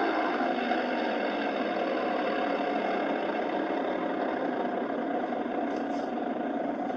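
Drivetrain noise from the driveshaft tunnel of a 2014 Dodge Charger Pursuit with the 5.7L HEMI, heard inside the bare cabin together with road noise as the car slows, growing slightly quieter. The noise changes with road speed rather than gear, and the owner suspects the rear axle, the transmission or the driveshaft carrier (hanger) bearing.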